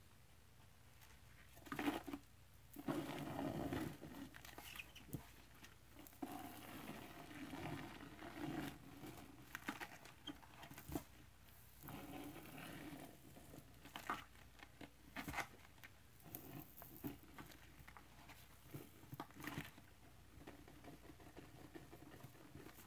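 Powdered scouring cleanser shaken from a canister into a plastic bucket: soft, uneven pattering of the powder landing, with scattered sharp taps of the can.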